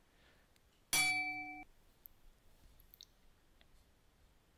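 An electronic chime: one steady, bell-like tone lasting about two-thirds of a second, about a second in, cut off sharply. A few faint clicks follow.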